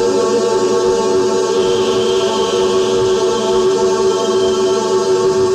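Dense, sustained drone from Buchla and Eurorack modular synthesizers: many held tones layered into a steady, choir-like wash. A faint high tone swells in about a second and a half in, fades, and returns near the end.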